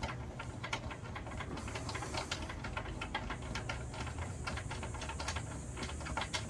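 Irregular light clicks and taps from hand work on an air conditioner's mounting hardware: small fixings and tools being handled. A low steady hum runs underneath.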